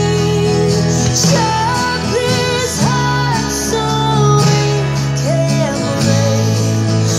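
Music: an acoustic guitar strummed over long held bass notes, with a melody line that slides up and down between notes.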